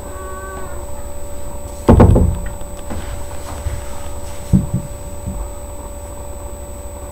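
A loud thump about two seconds in, over a steady low hum and a thin high whine; a few short low sounds follow near the middle.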